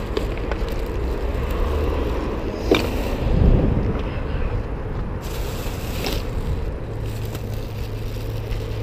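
A baby stroller loaded with bags of rubbish rolling over a paved footpath, its wheels rumbling, with road traffic noise. There is a sharp knock a little under three seconds in, and a steady low hum joins about seven seconds in.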